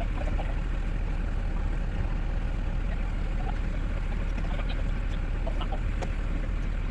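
Steady low rumble, with chickens clucking faintly now and then.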